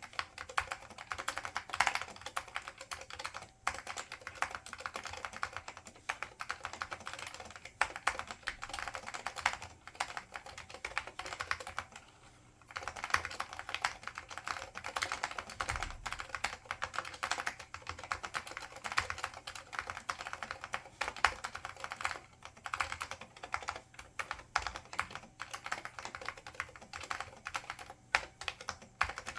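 Fast continuous typing on an IBM 5556-001 Multistation keyboard with Alps SKCL green switches and ABS doubleshot keycaps: dense, rapid key clicks, with a brief pause a little past the middle.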